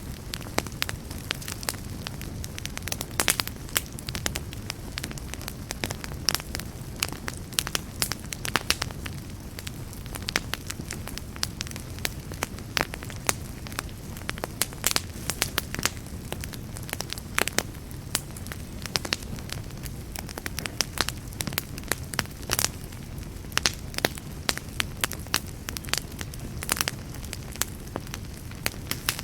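Campfire burning with a steady low rumble and hiss, and many sharp, irregular crackles and pops from the burning wood, several a second.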